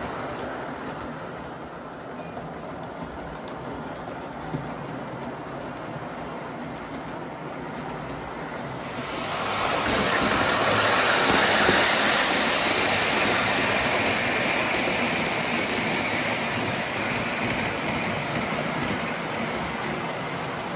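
O gauge model train running on tinplate track: a steady rumble and hiss of metal wheels on the rails, which grows clearly louder about nine seconds in and then slowly fades a little.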